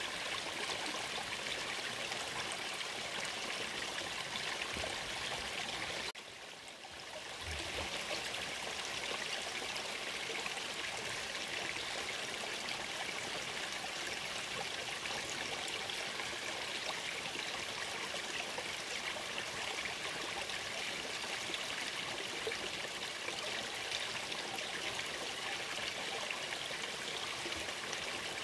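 Small forest brook running shallow over rocks, a steady sound of flowing water that drops briefly about six seconds in.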